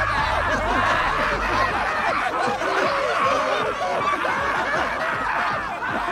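A crowd of cartoon characters laughing together, many voices overlapping without a break.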